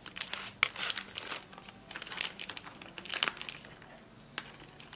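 Plastic packaging bag crinkling and rustling in irregular bursts as it is cut open with kitchen shears and peeled off a thawed cod fillet, then a single sharp click near the end.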